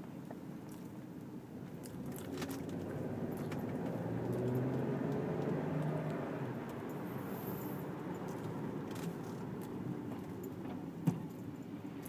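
A motor vehicle's engine and road noise swell for a few seconds and then ease off, with some light rattling and a single sharp click near the end.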